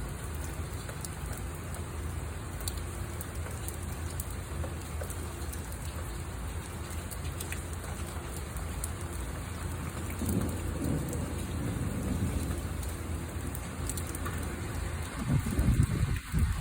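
Steady rain falling, with low rumbles swelling up about two-thirds of the way in and louder again near the end.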